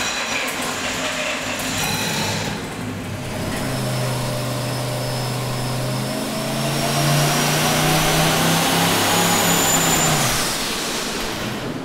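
Turbocharged small-block V8 making a pull under load on an engine dyno: the engine note climbs with a thin rising turbo whistle over it, then cuts off suddenly about ten seconds in. The run is shut down with boost still building past 13 psi, which the crew puts down to a wastegate too small to control the turbo.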